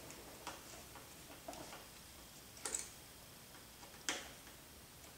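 Scattered light clicks and ticks of a small screwdriver and tiny screws working against an RC helicopter frame, with two sharper clicks, one midway and one about four seconds in.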